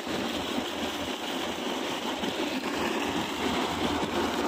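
Muddy river water gushing steadily from the outlet pipe of a tractor-driven belt-and-pulley pump and splashing into an earthen irrigation channel, with the tractor engine running steadily underneath.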